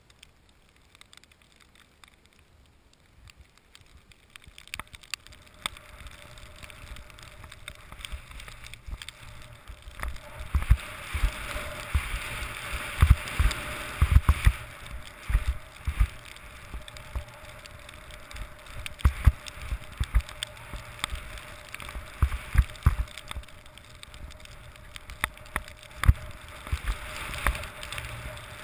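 Skis running fast through deep, cut-up powder snow: a steady rushing of snow with many short low thumps as the skis hit bumps and turns. Faint for the first few seconds, growing louder from about ten seconds in.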